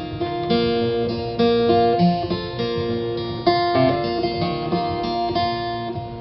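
Acoustic instrumental music: strummed string chords that change about once a second, with a few low thumps.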